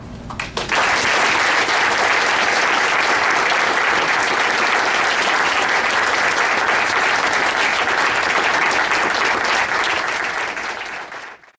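Audience applauding, building up about a second in and fading out near the end.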